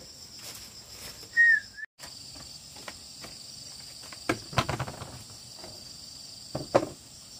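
Insects, crickets or cicadas, droning with a steady high buzz. A single short, loud, high chirp sounds about a second and a half in, and a few soft knocks come later.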